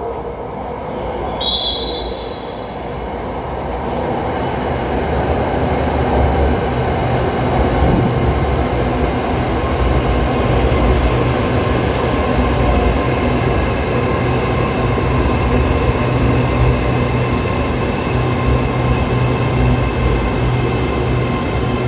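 SRT Red Line electric commuter train pulling into the platform, its rumble building over the first several seconds and then running steadily as the cars roll past, with a steady whine from the running gear. A short high-pitched tone sounds about a second and a half in.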